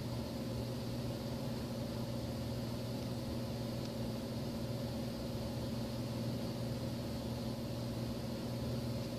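Steady low machine hum with a faint hiss behind it, unchanging throughout.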